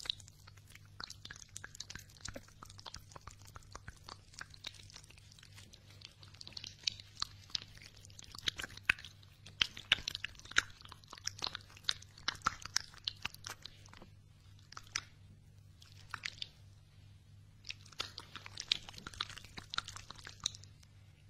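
Hands rubbing and patting together right at a binaural microphone's ear shells, giving crisp crackling and rustling skin sounds in clusters, over a faint steady low hum.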